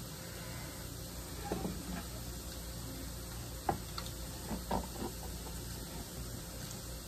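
A few faint, light taps as a drinking glass is pressed through corn tortillas on a wooden cutting board, cutting out small rounds, over a steady low background hum.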